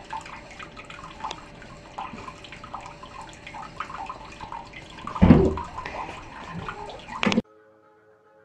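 Thin stream of water running from a tap into a ceramic washbasin, with small splashes and drips. About five seconds in there is a brief, louder low sound, and the water cuts off suddenly about seven seconds in, leaving only faint steady tones.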